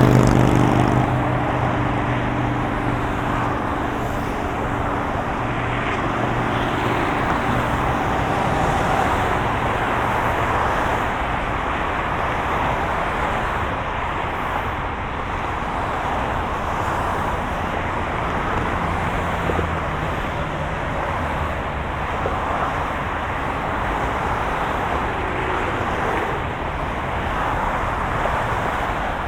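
Steady road traffic, a continuous wash of passing vehicles and tyre noise. Near the start one vehicle's low engine note stands out and fades away over the first several seconds.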